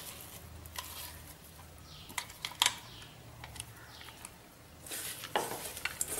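A hand mixing crumbled soya chunks into ground masala paste in a stainless steel bowl. At first there are scattered light clicks against the steel. About five seconds in, a louder, steady rubbing and pressing of the mixture begins.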